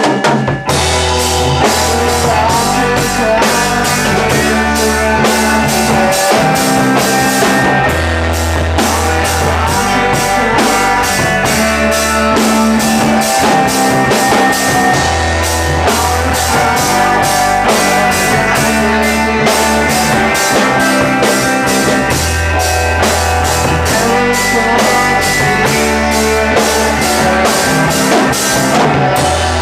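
Rock music playing: a full band with drum kit, bass and guitar, the drums and bass coming in just after a quieter guitar opening.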